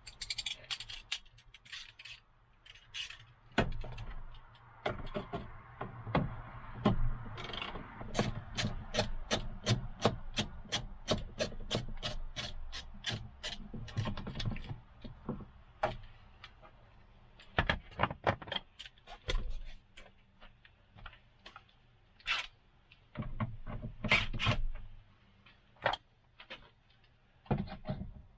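Hand tools and plastic trim being worked while a truck's interior door panel is taken off: rubbing and scraping, scattered clicks and knocks, and a run of quick even clicks, about four a second, in the middle.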